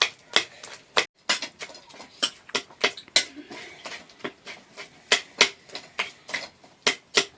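A quick, irregular run of sharp clicks and taps, roughly three or four a second.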